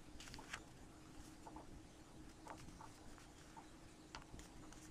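Faint, scattered ticks and rustles of a sheet of paper being folded in half and creased by hand, over near silence.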